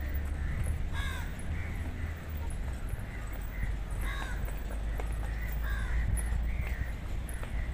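Crows cawing several times, about a second in, around four seconds in and near six seconds, with smaller birds chirping in between, over a steady low rumble.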